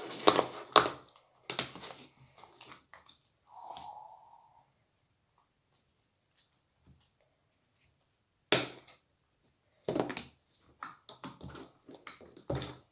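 Sticky homemade borax slime being squeezed and kneaded in the hands, giving sharp wet clicks and pops in two spells with a few seconds' pause between.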